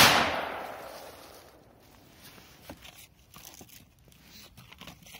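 A Joker Fireworks Big Bomb triangle firecracker explodes with one sharp bang, its echo dying away over about a second and a half. A few faint clicks follow.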